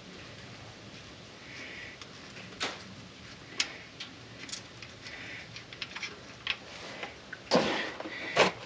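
Scattered sharp clicks, about one a second, from hand-tool work with a 3/8-inch ratchet under a truck, then a short scraping rush and a louder knock near the end.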